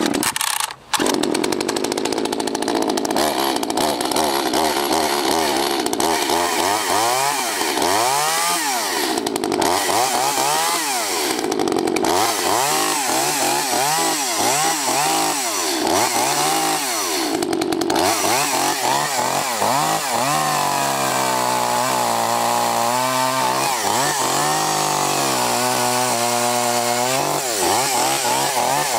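Two-stroke engine of an Echo CS-260TES chainsaw running, revved up and down again and again, then held at shifting steadier speeds near the end. A brief break about a second in.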